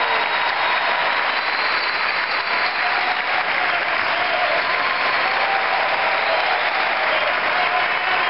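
Crowd applauding steadily, with a few voices faintly audible over the clapping.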